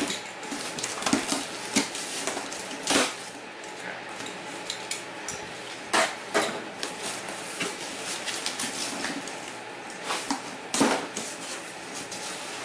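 A blade cutting and scraping along packing tape on a cardboard box, with the cardboard being handled and its flaps worked open: irregular scrapes, knocks and rustles.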